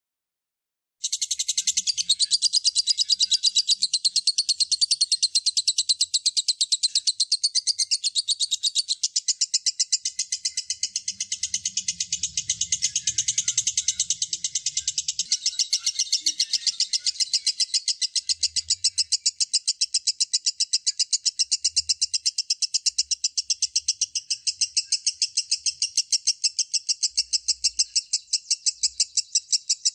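Lovebird's long, unbroken chattering song ('ngekek'): a rapid stream of shrill, evenly repeated notes, starting about a second in. It is a tutor recording of the kind played to get lovebirds that have stopped singing to sing again.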